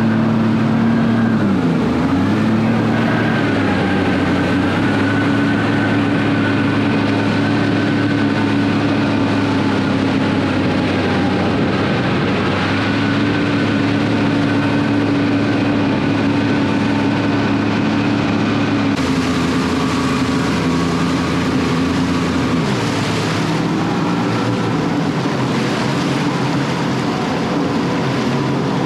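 Jet ski engine running steadily under throttle while pushing against a strong flood current. Its pitch dips briefly about two seconds in and again about three-quarters of the way through, then picks back up.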